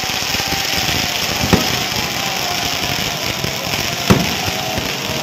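Aerial firework shells bursting: two sharp bangs, one about a second and a half in and one about four seconds in, over a constant hiss.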